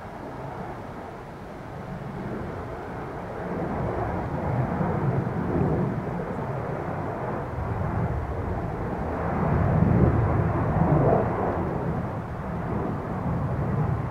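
Jet engines of a Boeing 767-300ER airliner, a rushing roar that swells steadily and is loudest about ten seconds in, then eases a little.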